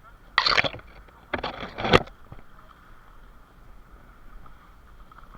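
Two short bursts of rustling and scraping, like gear or brush rubbing close to the microphone, the second ending in a sharp click about two seconds in.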